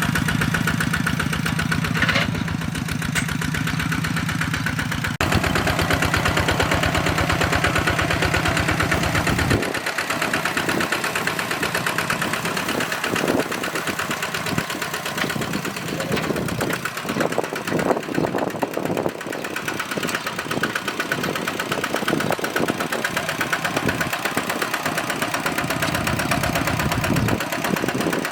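Diesel engine of a two-wheel hand tractor running with a fast, even chugging. Its sound shifts about five seconds in and again near ten seconds, where the deep low end drops away.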